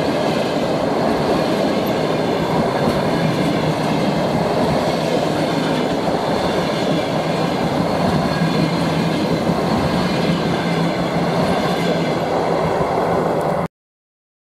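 Passenger train coaches passing close by at speed: a steady rolling rumble of steel wheels on the rails, which cuts off abruptly near the end.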